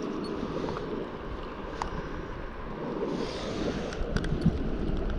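Wind buffeting the microphone as a low, steady rumble, with a few faint clicks.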